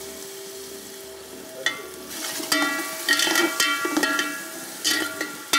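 Chopped tomatoes frying with onion, ginger-garlic paste and herbs in a pan of oil while a spatula stirs and scrapes it. The scraping and clinking start about two seconds in and grow louder.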